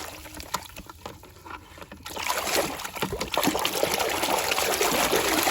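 Water splashing and trickling as a muddy plastic toy truck is washed by hand, with scattered small knocks. It is quieter for the first two seconds, then turns into a steady wash of splashing.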